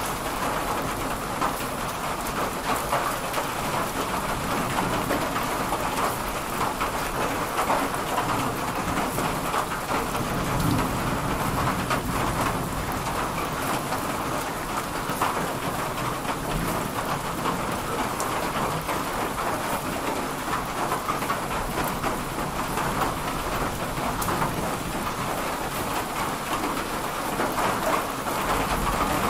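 Steady rain pouring down, pattering on surfaces, with a low rumble of thunder about ten seconds in.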